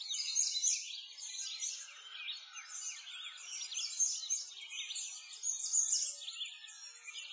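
A chorus of many small songbirds chirping and singing at once, a dense run of quick high chirps with no pause.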